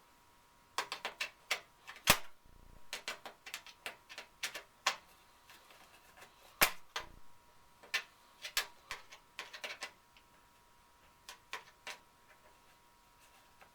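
A screw being driven by hand into the sheet-metal dryer vent pipe joint: irregular clicks and metallic taps in clusters. The loudest clicks come about two seconds in and again near seven seconds.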